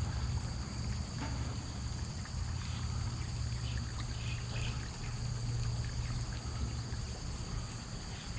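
A steady low hum with water trickling over it, without a break.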